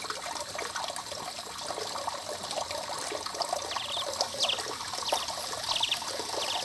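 Thin stream of water splashing steadily from a stone spout into the pool below. A few short high chirps sound over it in the second half.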